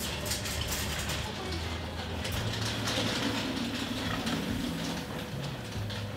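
Wheeled metal racks loaded with badminton racket frames rattling and clattering as they are pushed and rolled, with many small clicks and knocks over a low rumble.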